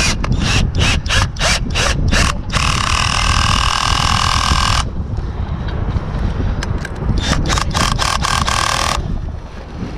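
Cordless drill-driver tightening a screw into a wall plug. It starts with a quick run of sharp clicks, then the motor whines steadily for about two seconds, then comes more clicking and a shorter whine.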